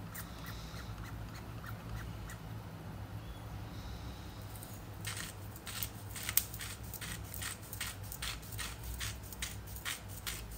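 Two short faint hisses from an oil mister spraying a little oil onto chopped potatoes. From about halfway through comes a run of fine, irregular crackles as dried seasoning such as rosemary is crumbled between the fingers over the bowl.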